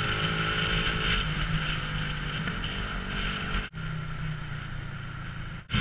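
Motorcycle engine running at a steady cruise, with wind rushing over the microphone. The sound cuts out briefly twice, just under four seconds in and again near the end.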